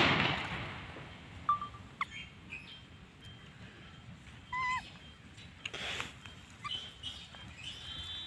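Scattered short chirps and calls from small birds, including a brief arched call near the middle and high warbling chirps near the end. A loud rush of noise at the very start fades out within about a second.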